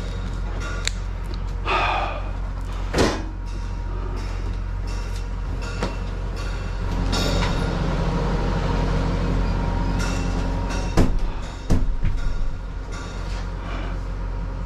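Steady low hum in a shop front room, with scattered clicks and knocks and a door banging shut with a couple of clunks about eleven seconds in.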